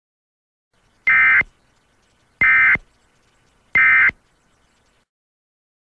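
Emergency Alert System end-of-message (EOM) code: three short identical bursts of SAME digital data tones, warbling between two high pitches, with about a second's pause between bursts. It is the signal that closes the alert or test.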